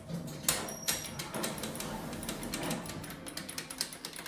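Rapid, irregular clicking and knocking from a Schindler elevator cab, a run of sharp clicks with a few louder knocks.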